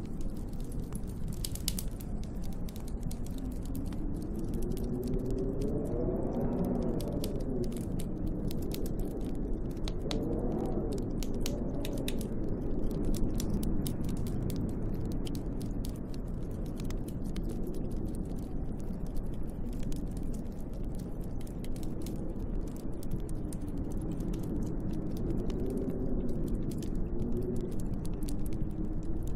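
Snowstorm wind with gusts that howl, rising and falling in pitch a few times, over a fireplace fire crackling with many sharp pops.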